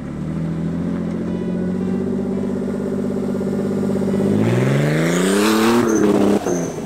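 Turbocharged BMW truck's engine running at a steady speed, then revving up with a rising pitch about four seconds in, joined by a loud rush of noise. Near the end the throttle is closed and the sound drops suddenly.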